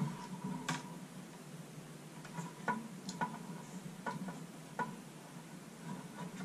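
Faint, light clicks and taps, about six spread over a few seconds, from handling and pushing together the plastic Molex power connectors of a PC case fan and a power-supply cable.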